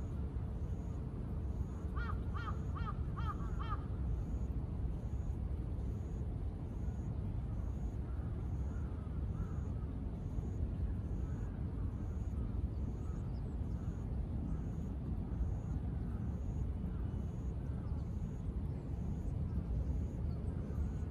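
A crow cawing about five times in quick succession about two seconds in, with fainter calls later, over a steady low rumble of distant city traffic.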